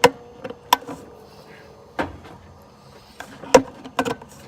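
A handful of sharp, irregularly spaced clicks and knocks, the loudest about three and a half seconds in: parts and tools being handled.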